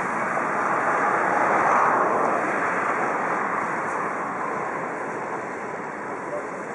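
DR class 52 steam locomotive 52 8177-9 and its historic coaches rolling by: a steady, even running noise with no distinct beats. It swells about two seconds in, then slowly fades as the train draws away.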